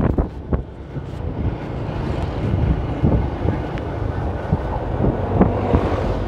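Steady low rumble of a moving vehicle and road traffic, with wind buffeting the microphone and scattered small knocks.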